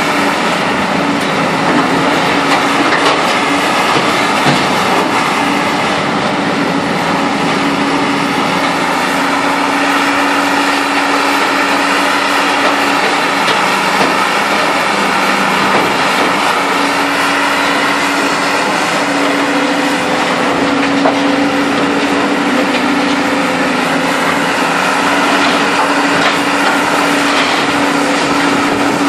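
Heavy hydraulic scrap-handling machinery running steadily: a constant droning hum under a wash of mechanical noise, with no break or change.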